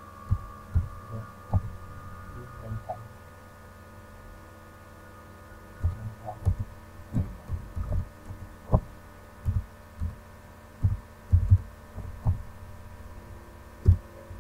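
Computer keyboard keystrokes heard as irregular dull thuds, picked up through the desk, over a steady electrical hum. The thuds come in a short burst at the start and a longer run in the second half, the loudest near the end.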